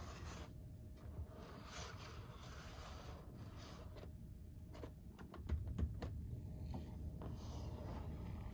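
Hands unpacking and handling a plastic toy and its packaging: soft rustling and scraping, with a quick run of small clicks about five seconds in.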